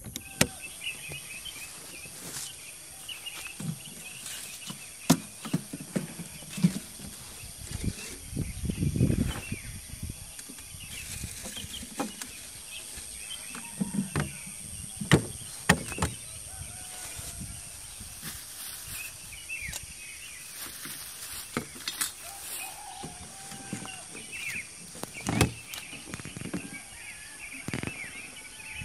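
Scattered knocks and clatter of aluminium motorcycle cases and a glass bottle being handled and set down, with a few dull thuds, over a steady high insect hum and occasional bird chirps.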